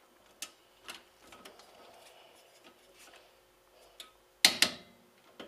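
Torque wrench on a rear wheel hub bolt: a few light clicks, then a sharp double metallic click about four and a half seconds in, the click of the wrench reaching its set torque on the last hub bolt.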